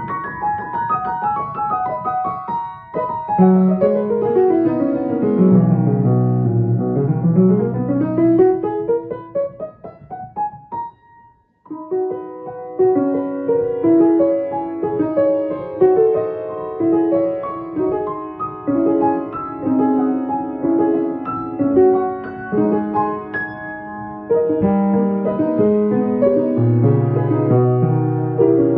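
Piano being played in practice: a long run down the keyboard and back up, a short stop a little after ten seconds in, then steady chords.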